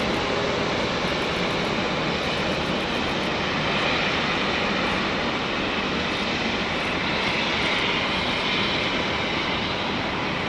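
Airbus A350's Rolls-Royce Trent XWB turbofans running at taxi power as the airliner taxis and turns, a steady jet rush and whine whose higher part swells a little in the middle.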